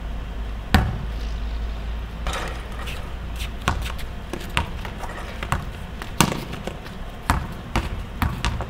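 Basketballs bouncing on a concrete court as players dribble: about a dozen sharp thuds at uneven intervals.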